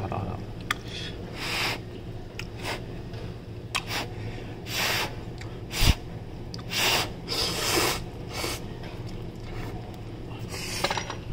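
A man eating spicy instant ramen noodles: about eight short hissing slurps and breaths, with one sharp click about six seconds in.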